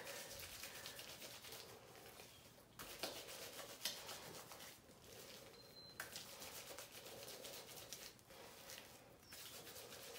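Faint wet squishing and crackle of fingers working color-depositing shampoo lather through wet hair.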